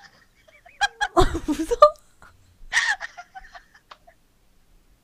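A woman laughing in short bursts, loudest about a second in, with a smaller burst of laughter near the middle.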